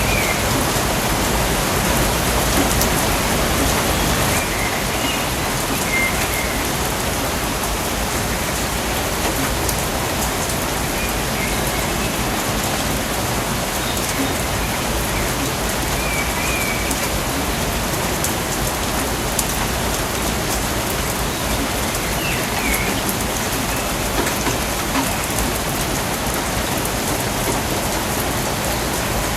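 Steady rain falling in a rainforest, an even, dense hiss, with faint short bird chirps every few seconds.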